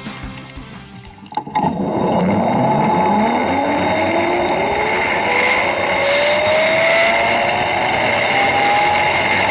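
Zip-line trolley launched with a sudden loud start about a second and a half in, then its pulley wheels whine along the cable, the whine rising steadily in pitch as the rider picks up speed, over a loud rush of wind.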